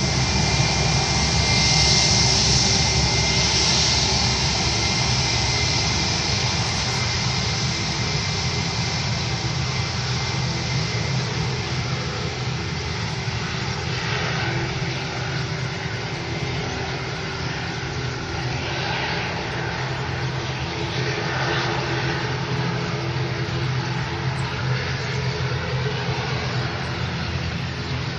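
A twin-engine jet airliner's engines running as it moves along the runway: a steady, broad jet noise, loudest in the first few seconds and then slowly fading.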